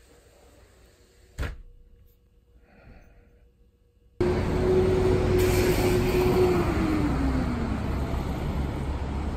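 A sliding window knocks shut once, about a second in. Then, after a sudden change, loud city traffic noise: buses and cars, with one vehicle's hum holding steady and then falling in pitch as it goes by.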